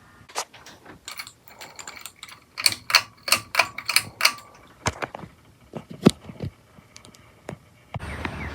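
Ceiling fan making a series of sharp mechanical clicks and ticks, about three a second through the middle, fewer and fainter toward the end.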